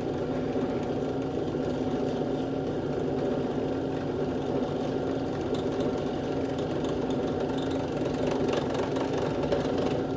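Electric drill running steadily at a constant pitch while drilling a pilot hole into the ball of a phone mount.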